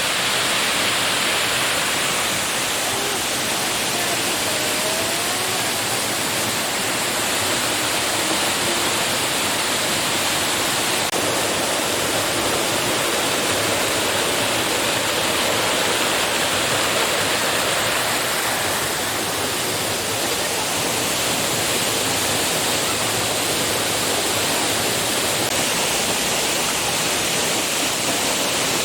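A small waterfall: the steady rush of falling water.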